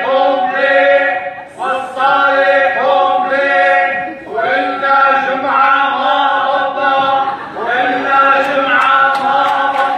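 A group of voices singing together without instruments, in short repeated phrases of about a second and a half, each starting with an upward slide.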